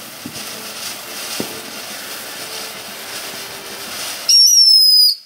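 TNT Old Glory fountain firework spraying sparks with a steady hissing crackle. About four seconds in, a whistler in the fountain lets out a loud high whistle that falls slightly in pitch and cuts off suddenly less than a second later.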